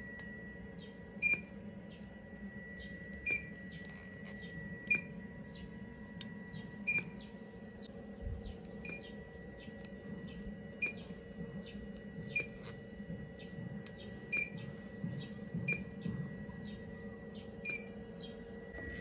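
Handheld IPL hair-removal device firing flash after flash: a short beep with a click at each pulse, about one a second, over a steady high hum.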